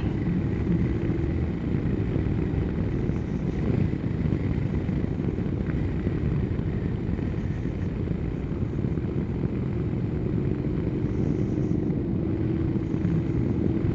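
Honda NC750X's parallel-twin engine running at road speed, with a faint steady engine hum under heavy wind and tyre rumble on the rider's microphone.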